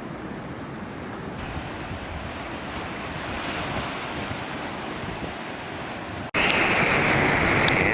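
Steady outdoor rushing of wind and ocean surf. About six seconds in it cuts sharply to louder wind buffeting the microphone.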